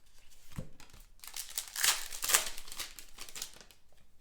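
Foil trading-card pack wrapper being crinkled and torn open by hand, a run of crackling about a second in. A soft thump comes just before it.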